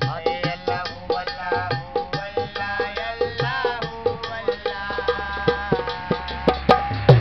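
Folk music: a dhol barrel drum struck by hand in a quick steady beat, about four or five strokes a second with deeper strokes roughly once a second, under a held melody that slides in pitch over a steady drone. A few sharp knocks near the end.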